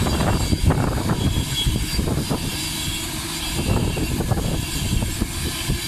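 InterCity 225 passenger coaches passing at speed: a steady rumble of wheels on the rails, broken by short clicks as the wheelsets cross rail joints, with wind buffeting the microphone.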